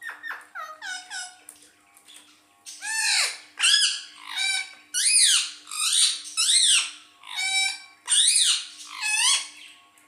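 Rose-ringed parakeet calling at its reflection in a mirror: a run of squawking calls, each rising then falling in pitch. They start short and quieter and become louder and spaced about a second apart from about three seconds in.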